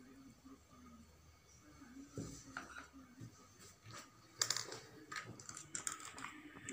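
Plastic tubs and a silicone pastry brush being handled and set down on a table: a scatter of light clicks and knocks, the sharpest about four and a half seconds in.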